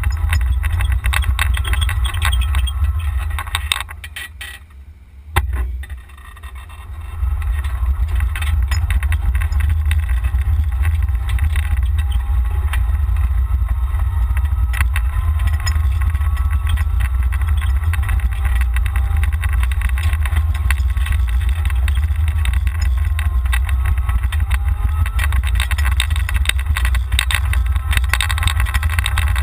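Golf cart driving, heard from a camera mounted on the cart, with heavy low wind rumble over the microphone. The rumble drops away briefly about four to seven seconds in, with a single click in that lull, then comes back.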